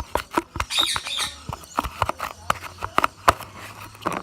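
Stiffening cornstarch-and-PVA-glue slime being kneaded by hand, giving a run of sharp clicks and pops. A pet bird squawks briefly about a second in.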